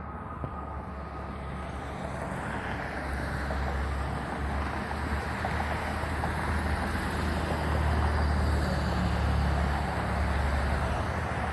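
A road vehicle's engine rumble and tyre noise, growing louder over several seconds and then holding steady.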